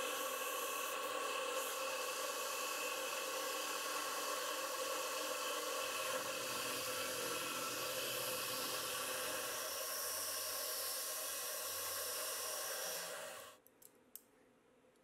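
CNC milling machine cutting an aluminium plate with a small tool: a steady hiss of mist coolant from the nozzle over the spindle's whine. It cuts off sharply about thirteen seconds in, followed by a few light clicks.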